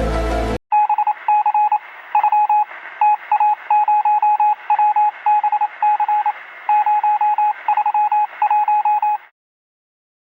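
A string of short electronic beeps, all on one pitch, in uneven groups with a thin, telephone-like sound, stopping abruptly about nine seconds in.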